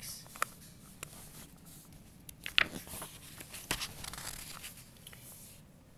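Picture-book pages being handled and turned: paper rustling and crinkling, with scattered sharp clicks and snaps, the loudest about two and a half seconds in.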